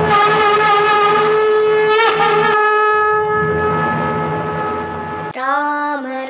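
A wind instrument holds one long, steady horn-like note that wavers and breaks about two seconds in, then carries on. About five seconds in it cuts off abruptly and devotional singing with music begins.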